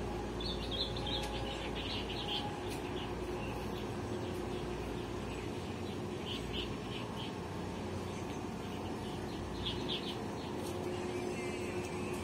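Small birds chirping in short clusters of quick high notes, repeated every couple of seconds, over a steady low hum.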